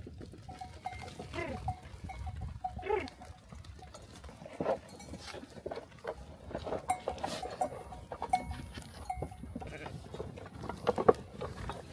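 A flock of sheep and goats crowding in to eat grain, with their bells clinking again and again, occasional bleats, and the knocks and scuffles of the animals jostling.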